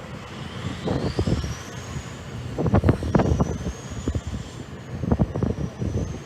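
Wind buffeting the microphone in irregular gusts, over distant jet aircraft noise, with a faint high whine that rises and then wavers.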